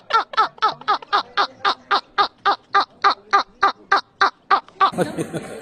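A man laughing in a rapid, even string of short 'ha' bursts, about four a second, which stops about five seconds in.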